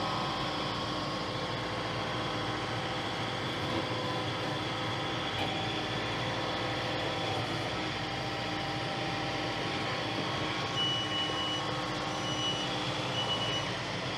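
A steady mechanical drone with several faint steady tones in it. In the last few seconds a high beep sounds on and off about four times.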